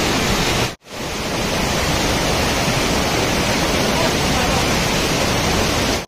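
Steady rush of a tall waterfall pouring down a rock face onto boulders, broken off for a moment just under a second in.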